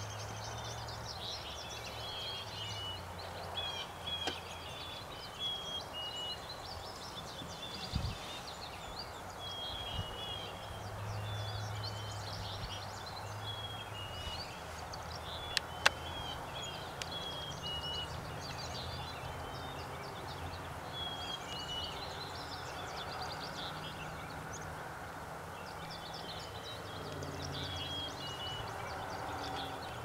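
Small songbirds chirping continuously, a stream of short, high, falling notes in quick succession, over a low steady hum. A sharp click about sixteen seconds in is the loudest moment, with a dull thump around eight seconds.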